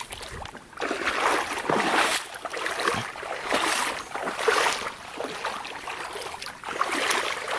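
Flowing creek water with irregular splashing and rustling close to the microphone, coming in uneven surges about once a second.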